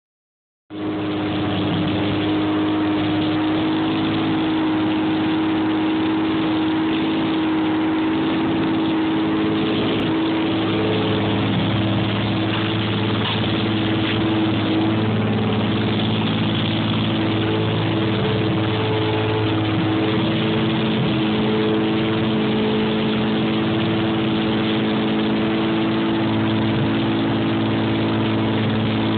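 Turbocharged Toyota Supra inline-six running at a steady idle on its first start after being built.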